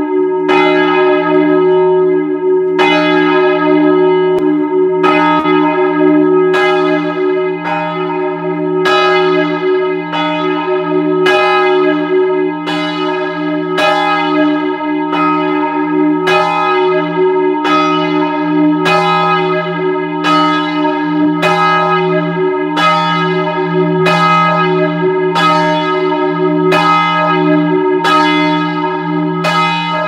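A ring of eight church bells with a 22 cwt tenor in E-flat, rung full circle and heard from inside the bell chamber: an even, unbroken succession of loud strikes, with the long bell notes carrying on underneath.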